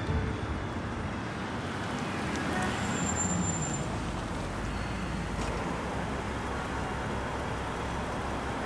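Steady road traffic noise of a city street.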